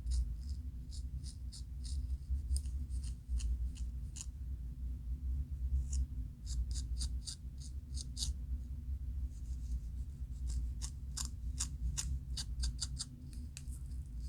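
Scalp being scratched through locs to loosen dandruff flakes: quick runs of short, crisp scratching strokes, several a second, with brief pauses about four and nine seconds in. A steady low hum lies underneath.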